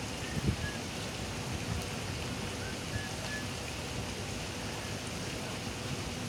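Steady splashing and hiss of pond aerators churning the water surface across a fishing pond, with a low knock about half a second in and a few faint short high chirps.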